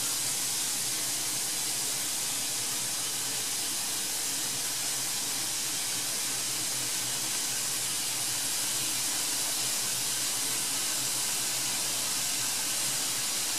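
Steady rain falling: an even hiss with no breaks or separate drops standing out.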